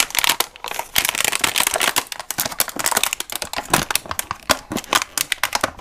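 Thin plastic bag crinkling and rustling in dense, irregular crackles as it is worked off a loaf of risen bread dough by hand.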